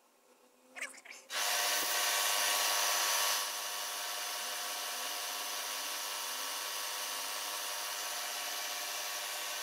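Milling machine spindle driving a small twist drill into a Stuart D10 steam-engine cylinder casting, boring the oblique port hole through into the scallop pocket. It starts about a second in and is loudest for the first two seconds, then runs on steadily.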